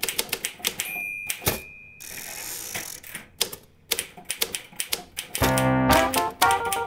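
Manual typewriter typing in rapid clacks, with a bell ding about a second in and a carriage-return sweep just after it, then more clacking. Music with piano-like chords comes in about five and a half seconds in.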